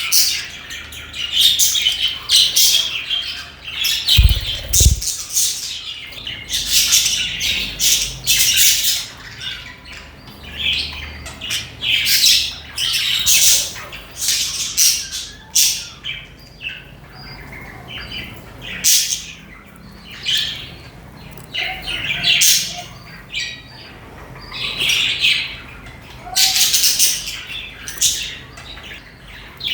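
A colony of budgerigars chirping and chattering, many short high calls overlapping in bursts. Two brief low thumps sound about four to five seconds in.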